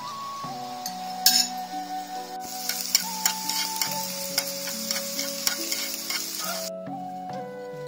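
Beaten egg sizzling in a nonstick frying pan as it is scrambled with chopsticks, with sharp taps of the chopsticks against the pan. The sizzle cuts off abruptly near the end, over gentle background music.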